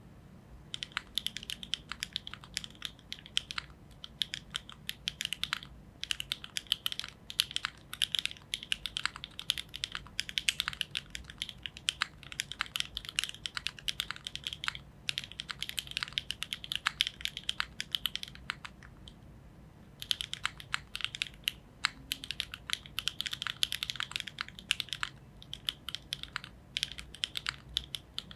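Typing on a gasket-mounted Neo70 mechanical keyboard with HMX Emo switches, a carbon fibre plate and GMK keycaps: fast runs of keystrokes with brief pauses between words and one longer pause about two-thirds through.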